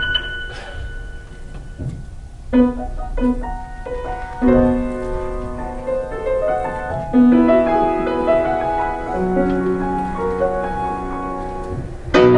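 Piano playing a slow melody of single held notes, beginning about two and a half seconds in. Near the end, louder and fuller music suddenly comes in.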